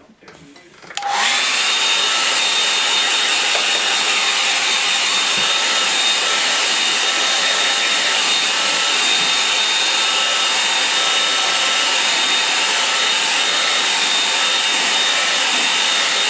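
Handheld hair dryer switched on about a second in, then blowing steadily, a rush of air with a thin high whine over it.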